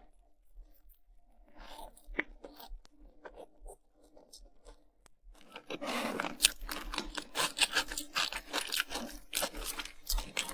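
Crunching and crackling of food being bitten and chewed close to the microphone: sparse and faint at first, then dense and louder from about halfway through.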